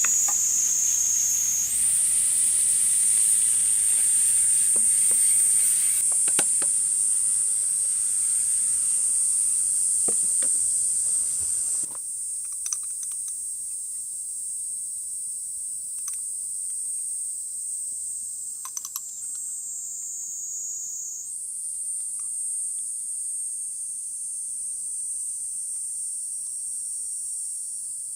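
Food sizzling in a skillet over a wood fire, with scattered crackles, under a loud steady high-pitched chorus of summer insects. About twelve seconds in, the sizzle stops abruptly, leaving the insect chorus and a few faint ticks.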